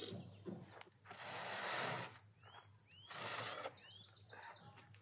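A metal baking tray scraping across the brick oven's ledge twice, the first scrape the louder, with small birds chirping in quick series around the second.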